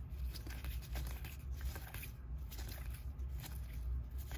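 1991 Upper Deck baseball cards being flipped through by hand, each card sliding off one stack onto another with quiet, irregular rustles and ticks, over a steady low hum.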